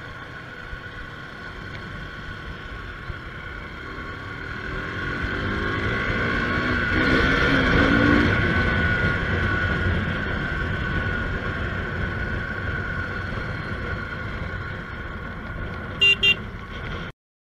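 Motorcycle engine and wind noise while riding, swelling to a peak about halfway and then easing off. Two short horn beeps come near the end as a car pulls out close in front.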